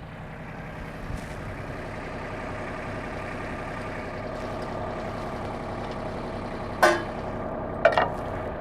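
Mahindra Max series compact tractor's diesel engine running steadily, a little louder after about a second, while the backhoe hydraulics are worked to take the weight off the mounting pins. Two sharp knocks near the end.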